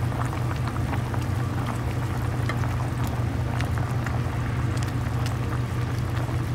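Large pot of seafood boil at a rolling boil: a steady low rumble with many small bubbling pops.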